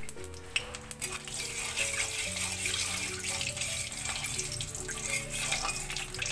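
Hot oil with a pinch of salt sizzling in an aluminium kadai, stirred by a metal spatula that scrapes the pan now and then. Soft background music with a stepped melody plays underneath.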